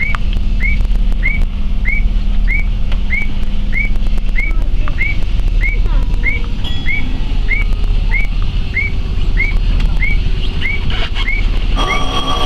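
An electronic bird-like chirp signal repeating evenly about one and a half times a second, over the steady low hum of a stopped electric train. A chime of several tones starts near the end.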